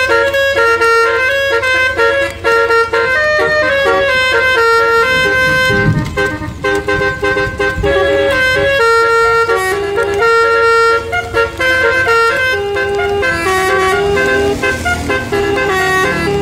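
Bus 'telolet' basuri multi-tone air horn playing a fast medley: held horn notes step up and down several times a second. A low rumble joins in near the middle.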